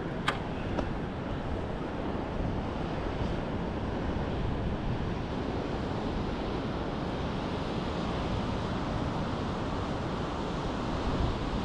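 Steady rushing noise of wind buffeting the microphone mixed with ocean surf, with one sharp click just after the start.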